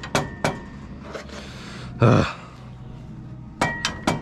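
Metal pinsetter parts and hand tools clinking and tapping during hands-on reassembly, some strikes leaving a short metallic ring, over a steady low hum. A louder, rougher sound comes about two seconds in, and a quick cluster of clinks near the end.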